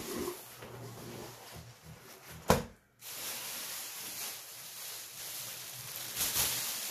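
Plastic packaging rustling and crinkling as it is handled and lifted out of a cardboard box, with one sharp knock about two and a half seconds in, just before the sound briefly cuts out.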